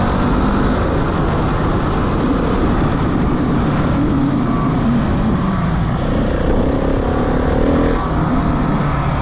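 Motorbike engine running while riding, buried in heavy wind rush on the microphone.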